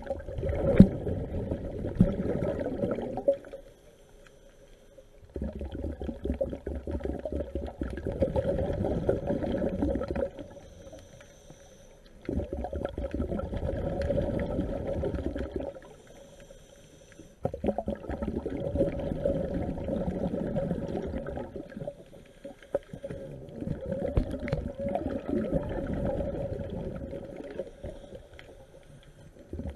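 A scuba diver breathing through a regulator, heard underwater: exhaled bubbles rumble in five bursts of a few seconds each, with short quiet pauses between them for the in-breaths.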